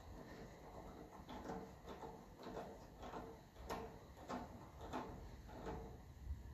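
Faint, irregular clicks, about one every half second, as a worm-drive jubilee clip on a tractor's bottom radiator hose is tightened with a hand tool in short turns.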